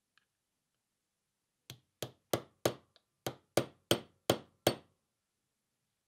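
A small hammer striking a pin punch held on a pocket knife's pivot pin: about ten sharp taps, roughly three a second, beginning nearly two seconds in, one of them much lighter.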